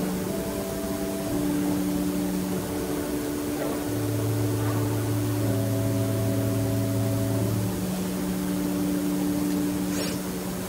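Slow, sustained chords held on a keyboard instrument, changing every second or two, with a low bass note held through the middle.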